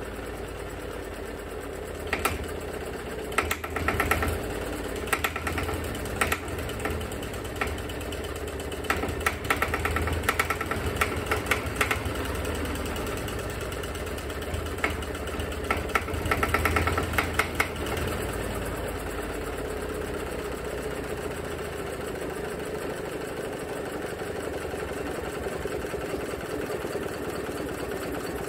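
1975 SABB marine diesel running away out of control on its first test run: it runs at a steady speed that cannot be shut down. Bursts of sharp metallic clattering sound over it through the first two-thirds.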